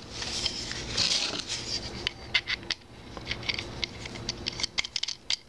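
Small metal-on-metal clicks and light scraping as a steel end is handled and screwed onto the threaded stud of a small machinist hammer's steel head. A soft scraping comes in the first second or so, then a run of sharp little clicks.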